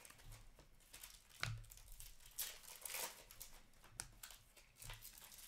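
Hockey trading cards being handled and slid against one another: faint scraping and rustling, with a few sharper flicks.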